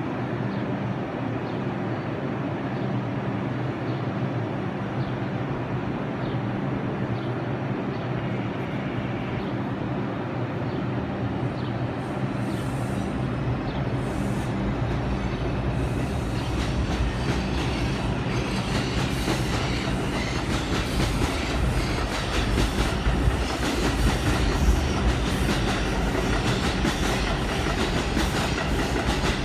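An R142 subway train running on the track, with a steady electric hum. About halfway through it grows louder and its wheels clatter rhythmically over the rail joints as it comes close.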